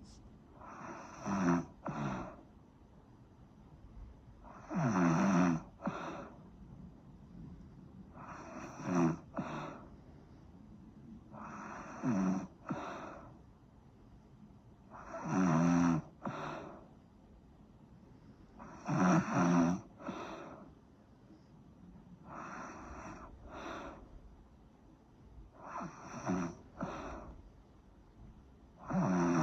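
Steady snoring: a rasping snore about every three and a half seconds, each one in two parts, a longer snore and then a short one just after.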